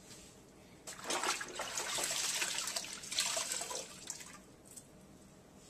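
Water running and splashing for about three seconds, starting about a second in.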